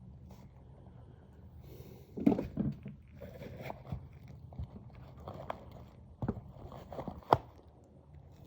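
Handling noise as a camera is moved and propped into place: scattered knocks, clicks and scraping, with a cluster about two seconds in and a sharp click about seven seconds in.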